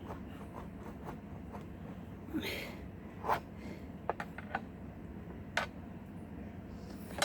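Metal tool working in the door gap of a locked safe during an attempt to force it open: a short scrape, then a few sharp clicks and taps of metal on metal spread over the next few seconds.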